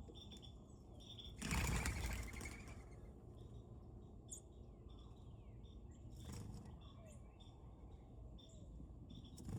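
Birds at a feeder: short high chirps repeat throughout, with a burst of wing flapping about one and a half seconds in and a shorter, fainter flutter about six seconds in.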